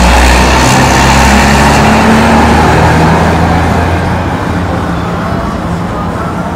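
A motor vehicle passing close by on the street, loud at first and slowly fading away.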